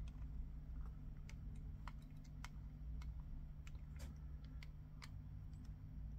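Faint, irregular small clicks of a tool working at the 3.5 mm jack retaining nut on a body pack transmitter, over a steady low hum.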